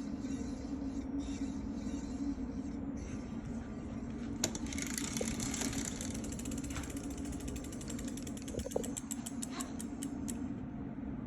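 Brake disc squeaking and creaking as it turns, over a steady low hum, with a run of rapid ratcheting clicks from about four seconds in until near the end.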